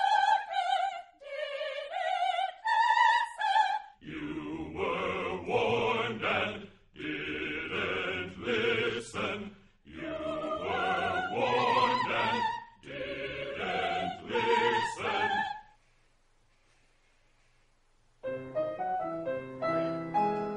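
Studio choir singing short, repeated phrases: high women's voices first, then from about four seconds a fuller, lower men's choir in rhythmic phrases. After a brief pause near the end, the singing starts again.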